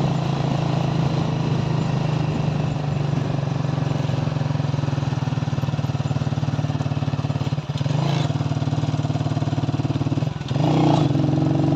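Motorcycle engine running steadily under way. The engine sound dips briefly twice, once about seven and a half seconds in and again near the end, and each time the note rises again afterwards.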